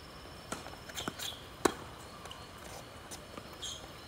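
Tennis rally on a hard court: a few sharp knocks of the ball on racket strings and court surface. The loudest comes about one and a half seconds in.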